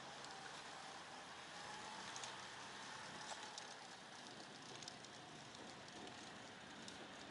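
Faint steady hiss with scattered small crackles and clicks, like quiet room tone.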